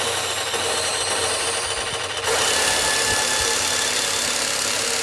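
Pachinko machine sound effect: a loud, steady grinding, hissing noise that jumps louder about two seconds in.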